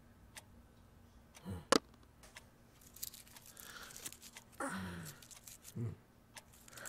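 A clock ticking about once a second, then one sharp knock. After that comes rustling and crinkling, with two short low sounds that fall in pitch.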